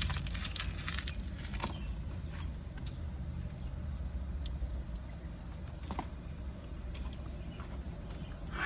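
Steady low rumble of an idling car heard from inside the cabin, with a few scattered soft clicks and chewing sounds of someone eating.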